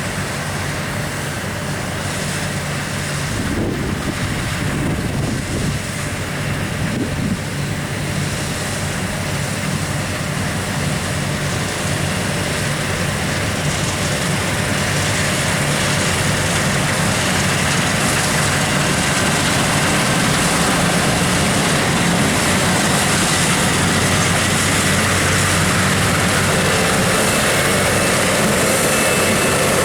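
New Holland CR8.90 combine harvester running under load while harvesting wheat: a steady engine drone with the hiss of the threshing and cutting gear, growing gradually louder about halfway through as it comes closer.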